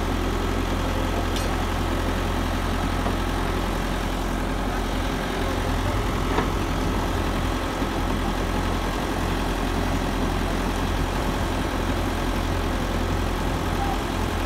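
Diesel engine of an Ajax Fiori Argo 2500 self-loading concrete mixer running steadily at idle, a low even drone.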